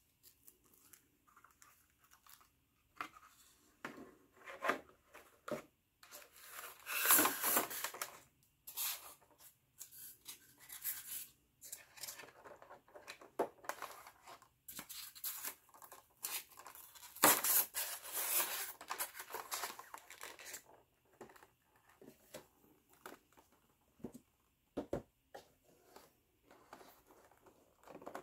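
A rigid clear plastic box being handled: irregular crinkling, rubbing and scraping of the plastic, with two longer, louder scraping stretches about seven and seventeen seconds in.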